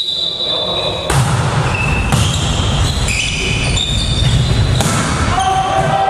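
A volleyball is struck several times during a rally, giving sharp hits about a second apart. Short high squeaks from shoes on the hall floor come between the hits.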